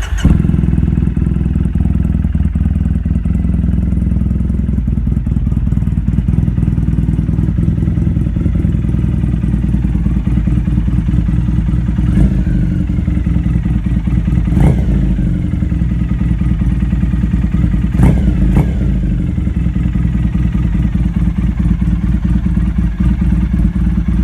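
Triumph Bonneville's parallel-twin engine running steadily, its faulty starter solenoid bypassed with a jumper wire. There are a few short throttle blips in the middle.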